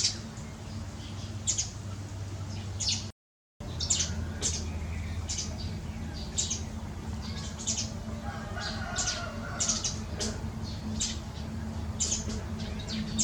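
A flock of birds calling: many short, sharp, high chirps and squawks, one after another, over a steady low hum. The sound drops out completely for a moment about three seconds in.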